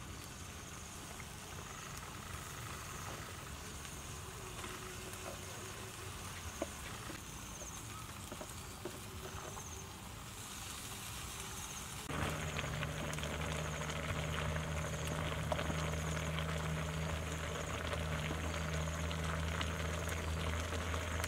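Outdoor ambience with insects buzzing in a pulsing high tone and a few light clicks. About twelve seconds in the sound jumps to louder, fine crackling sizzle of octopus and mushrooms frying in an iron wok over a wood fire, over a steady low hum.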